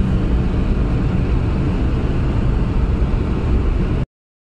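Car driving fast on a highway, heard from inside: steady, loud road and wind noise that cuts off suddenly near the end.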